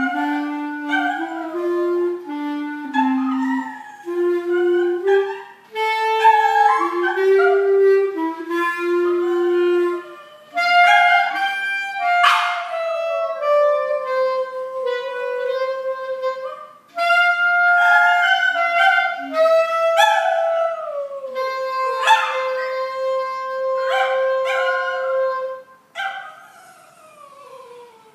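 Clarinet playing a slow tune while a small dog howls along with it in long, wavering howls that slide down in pitch. The clarinet's low notes are plainest in the first ten seconds or so; later the dog's drawn-out howls carry most of the sound, and both fade away near the end.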